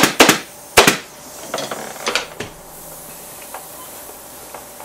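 Pneumatic staple gun firing staples through jute webbing into a chair seat frame: four sharp shots within the first second. Then softer rustling as the seat is handled, and a faint steady hiss.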